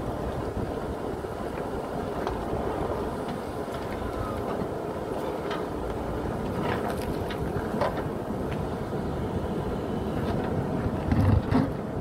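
JCB 3DX backhoe loader's diesel engine running steadily under digging load, with scattered clatter of stones and rock. Two heavy thumps near the end.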